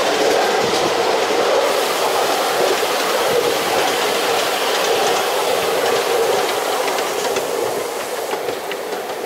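Ride-on miniature railway train running on its track, heard from the passenger car: a steady rumble of the wheels on the rails with light clicking at the rail joints, growing quieter over the last couple of seconds.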